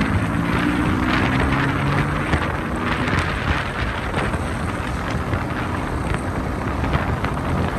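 Wind rushing over the microphone of a motorcycle riding along at road speed, with the engine's hum clearest in the first few seconds.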